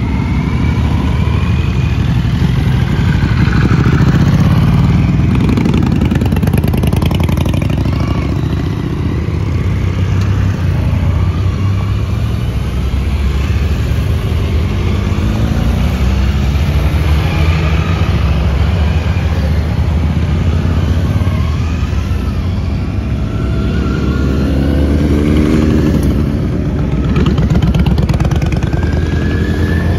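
A line of motorcycles riding past one after another, touring bikes and sport bikes among them, their engines running and revving as each pulls away. One rev rises clearly near the end.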